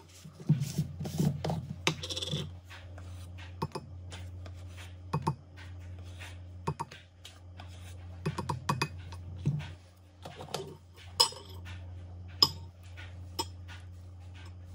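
Kitchen handling sounds: a metal measuring spoon scooping powder from a plastic tub and dipping into the slow cooker's juices, with a string of clicks, taps and scrapes against the containers and a glass measuring cup. A steady low hum runs underneath.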